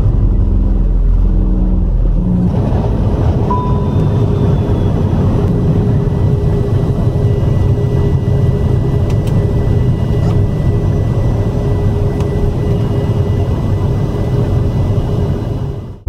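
Steady, loud rumbling cabin noise of a moving vehicle, with a faint steady hum running through it; it fades out just before the end.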